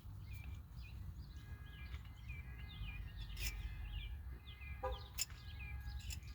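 Small birds chirping repeatedly in short calls, over a steady low rumble, with a couple of sharp clicks in the second half.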